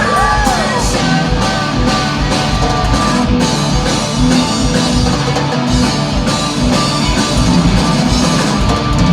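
Live rock band playing an instrumental stretch between sung lines, with electric guitar, bass and drums. A held note bends down and falls away about half a second in.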